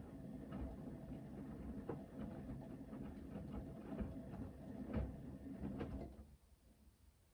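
Hoover VHD 9163 ZI washing machine drum turning during the main wash: motor hum and rumble with soft thuds from the tumbling laundry, the drum stopping about six seconds in for its pause between turns.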